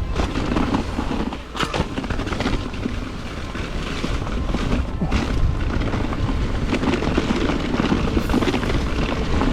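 Mountain bike riding fast downhill on a dirt trail: tyre noise and rattles and knocks from the bike over bumps, under a steady rumble of wind on the microphone.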